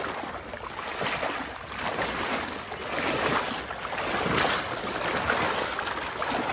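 Wading through shallow marsh water in chest waders: water sloshing and swishing with each stride, in surges about once a second.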